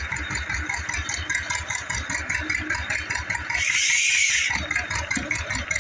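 Tractor engine running steadily under load, driving a flat belt that turns over a big old single-cylinder stationary engine's flywheels to start it. A loud hiss swells and fades about three and a half seconds in.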